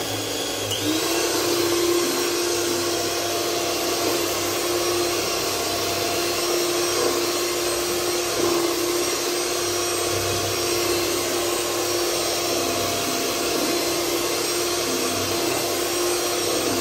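Simple handheld electric mixer running steadily, its beaters whipping a partly frozen green-corn ice cream base in a large bowl. The motor's hum steps up in pitch about a second in, then holds steady.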